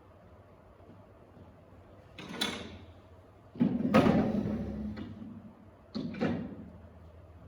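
Chairs being handled and set down: three clattering knocks, the middle one loudest with a lingering rattle.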